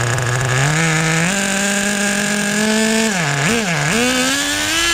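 Small .12 nitro engine of a 1/10 scale Team Associated Nitro TC3 RC car being revved: the note steps up twice, drops sharply twice about three and a half seconds in, then climbs steadily under throttle.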